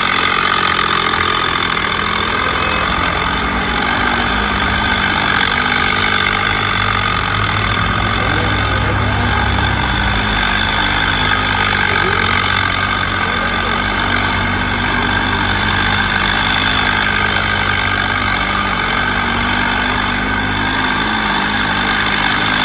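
Heavy vehicle engine running steadily, with a stronger low note from about eight to ten seconds in.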